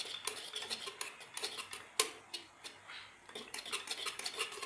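Idli batter being stirred in a container, with irregular clicks and scrapes against the container's sides and one sharper knock about two seconds in.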